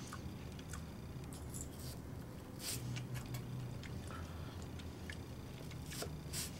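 Tamahagane Japanese kitchen knife slicing thin pieces of apple, its blade tapping lightly on a wooden cutting board now and then. The taps are faint and irregular, a few clicks scattered through.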